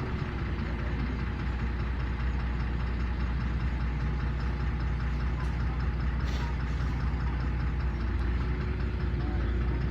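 Diesel engine of a LiAZ 5292.21 city bus running steadily, heard from inside the passenger cabin: a low hum with a faint steady whine above it, growing a little fuller about four seconds in.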